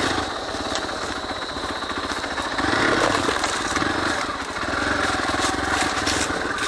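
Hero XPulse 200 4V's single-cylinder engine running as the motorcycle is ridden off-road, getting louder about two and a half seconds in.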